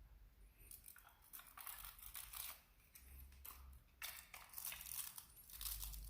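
Faint, scattered crinkling of an aluminium-foil boat being handled as a large Lego brick is fitted into it, in several short rustles.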